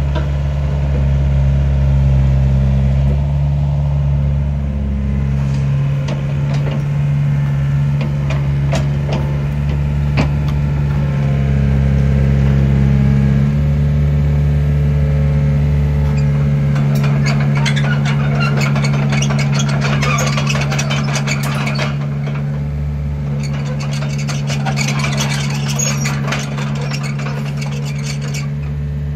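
2010 Takeuchi TB175C midi excavator's diesel engine running steadily. From a little past the middle, dense metallic clattering and rattling rides over it.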